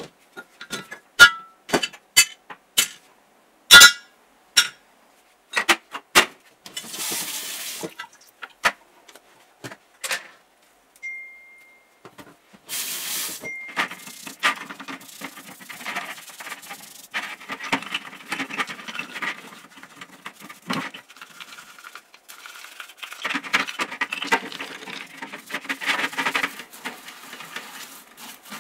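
Hard metal parts clattering into a plastic basket in a quick run of sharp knocks, then two short rushes of water. From about halfway on, a brush scrubs the metal drill housings in a tray of soapy water with steady scraping strokes.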